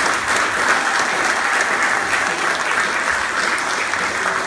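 Steady applause from a large seated audience, many people clapping at once.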